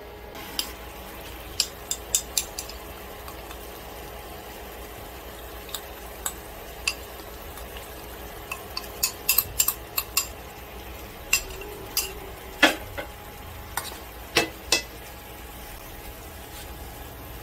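Squid and vegetables sizzling gently in sauce in a frying pan while being stirred, with scattered sharp clicks and knocks of utensils against the pan, in small bunches.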